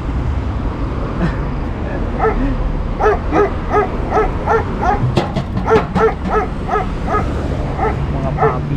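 Dogs barking in a rapid run of short, high yaps, about three a second, starting about two seconds in and going on until near the end, over a steady low rumble.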